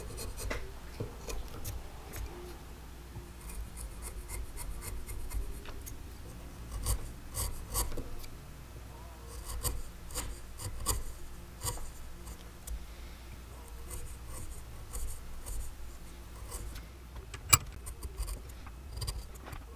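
A chisel shaving and scraping a small wooden lure blank held in a vise: a run of short, irregular cutting strokes in clusters, with one sharper click near the end.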